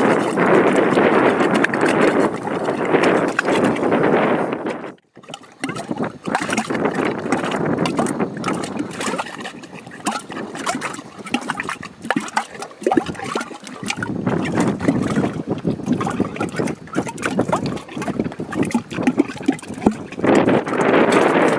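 Mud volcano gurgling and popping as gas bubbles up through thick mud, a dense crackle of small pops; it cuts out for a moment about five seconds in, is sparser for a while, then thickens again.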